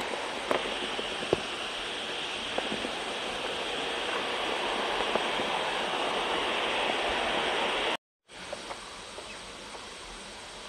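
Footsteps on stone steps, a few scattered taps, over a steady outdoor hiss. The sound cuts out briefly about eight seconds in and comes back quieter.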